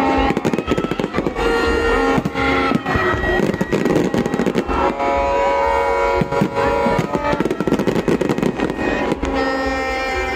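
New Year fireworks going off in a dense run of rapid bangs and crackles, with music playing alongside; the bangs thin out near the end.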